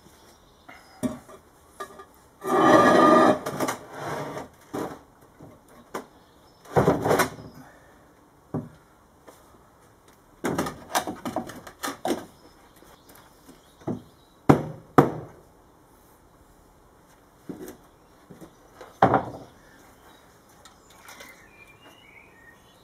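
Wooden boards and heavy rocks are set down and shifted on plywood sheets as weights on a canoe hull layout. A scraping slide of about a second comes about two seconds in, followed by knocks and thuds of wood and stone on the plywood, with two sharp knocks in quick succession about two-thirds of the way through.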